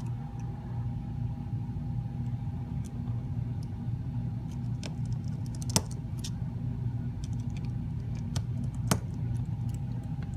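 Steady low background hum with a few light, sharp clicks scattered through it, the loudest a little before the middle: small parts and tools being handled during the phone repair, such as the battery connector being pressed back onto its socket.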